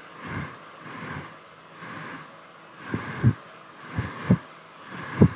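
Hair dryer running: a steady airy hiss that swells and fades about once a second, broken by several short low thumps that are loudest in the second half.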